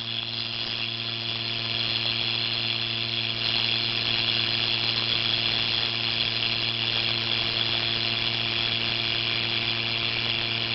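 Silicone rubber model vocal folds vibrating in a stream of air, giving a steady pitched buzz mixed with the hiss of the rushing air. The sound grows a little louder about three and a half seconds in.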